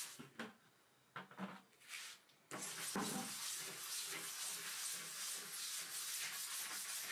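Stiff scrub brush scrubbing a wet, soapy concrete countertop: a scratchy rubbing, broken up and mostly quiet in the first couple of seconds, then steady from about two and a half seconds in.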